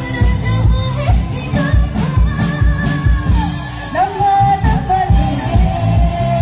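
A song with a singing voice over a steady, heavy bass beat, played loud through a live-event PA system with dual-bass subwoofers.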